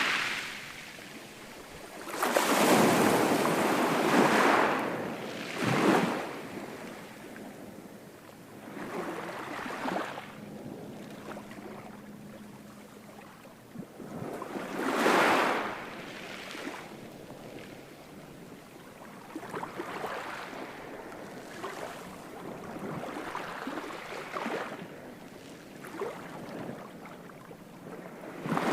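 Ocean waves breaking on a shore: a large wave crashes about two seconds in, another near the middle, with quieter washes of surf between.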